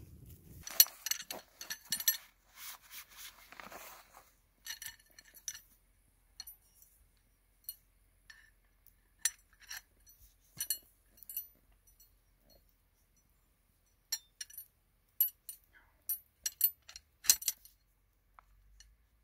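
Sharp metallic clinks and taps as the metal poles of a cooking tripod are handled and set up over a campfire. They come in a dense clatter over the first few seconds, then as scattered single clinks.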